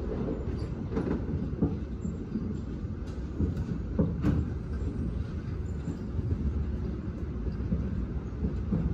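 Seoul Metro Line 4 subway train running over a steel truss bridge, heard from inside the carriage: a steady low rumble of wheels on rail with several sharp clicks, the loudest about four seconds in.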